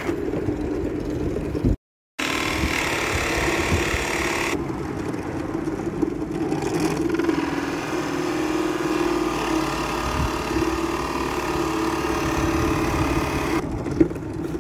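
Bench pillar drill running with a steady motor hum as its bit bores into a white board, the sound cutting out briefly about two seconds in.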